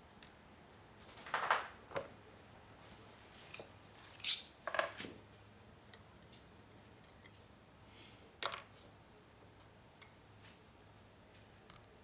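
Scattered clinks and short scrapes of small hard objects being handled, the loudest about a second and a half in, around four to five seconds in, and once more a little past eight seconds, with a few light ticks between, over a faint low hum.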